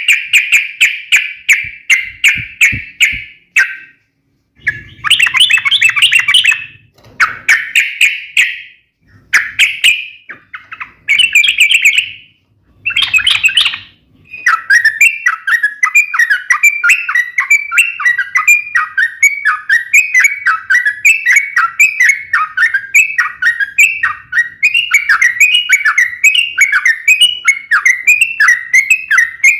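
Yellow-vented bulbul (trucuk) singing its sharp, rapid-fire fighting chatter. It sings in several short bursts with brief gaps, then, about halfway through, an unbroken run of quick, repeated, downward-sweeping notes.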